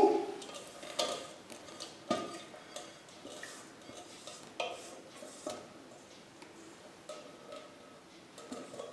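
A utensil scraping and knocking against a metal pot while melted butter and dark chocolate are poured into a steel bowl of whipped eggs: a few light clinks at irregular spacing, some with a short metallic ring.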